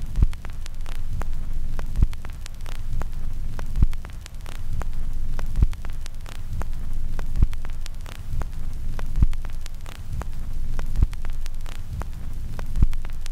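Low droning hum with a heavy bass thump about every two seconds, eight in all, under constant crackling static. It cuts in abruptly.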